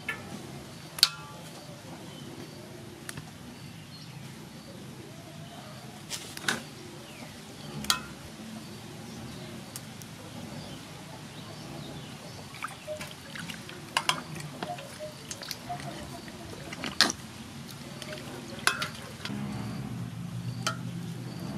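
Water sloshing and dripping in a metal basin as a whole raw chicken is handled and rinsed, with sharp splashes and taps now and then. Background music comes in near the end.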